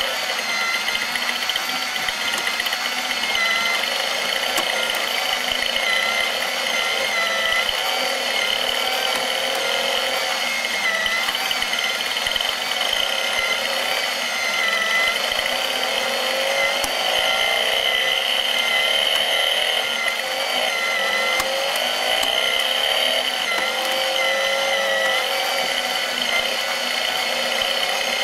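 Small electric motor of a BMW R90S engine plastic model running, driving the model's plastic gears and moving parts with a steady whine that wobbles slightly and regularly in pitch.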